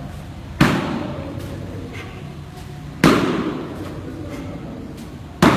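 Three sharp slaps of back breakfalls (ushiro ukemi) on foam martial-arts mats, the back and outstretched arms striking the mat about every two and a half seconds. Each slap echoes briefly in a large hall.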